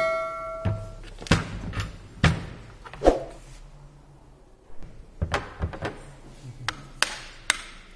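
Knocks, taps and clicks of a metal tool against the finned aluminium housing of a brushless electric-vehicle motor as it is handled and turned on a wooden bench during teardown, with a metallic ring fading in the first second. The knocks come irregularly, pause for about a second near the middle, then return as a quicker run of small clicks.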